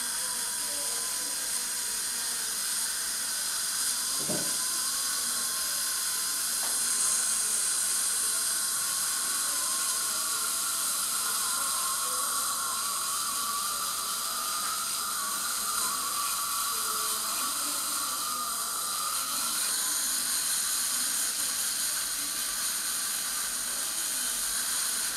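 Dental handpiece with a fine bur running steadily, a whine over a hiss that wavers slightly in pitch, as excess composite is trimmed away from around tooth-bonded Invisalign attachments.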